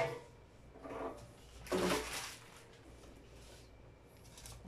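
Handling noises as a metal-cased inverter is moved and set down beside another: a sharp knock at the start, then two short scraping, rubbing noises about one and two seconds in.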